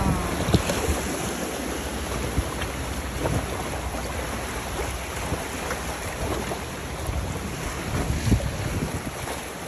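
River water flowing and splashing around an inflatable raft, with wind buffeting the microphone.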